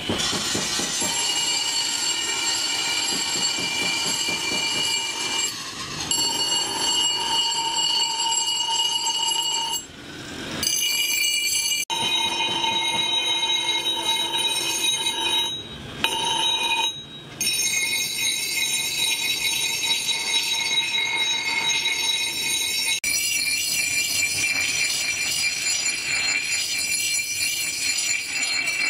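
Forged steel axe head pressed against a spinning bench grinder wheel: a steady, high-pitched metallic screech of grinding, broken off briefly a few times.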